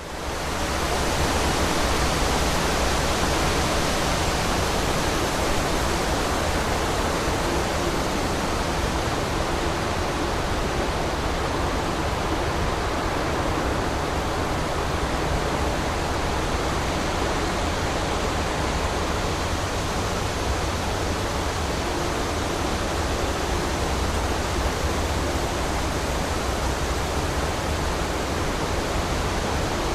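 Steady, unbroken rushing noise, even across low and high pitches. It comes in abruptly after a cut and holds at the same level throughout.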